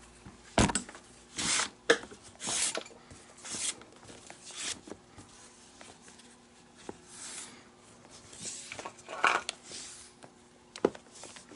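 Leather glove lace being drawn by hand through the lace holes of a baseball glove during relacing: a string of short rasping swishes, with a sharp knock about half a second in and a click near the end.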